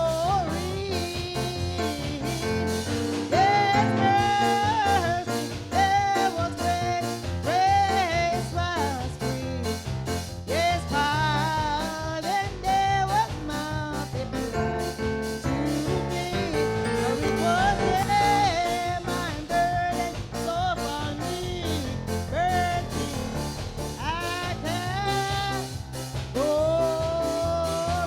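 Gospel song: a voice singing long, wavering held notes over a band with a steady beat.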